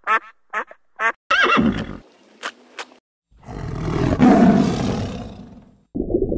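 Mallard duck quacking, a few short quacks about two a second and then a longer one. After a short pause, a tiger gives a long rough roar that swells and fades over about two and a half seconds.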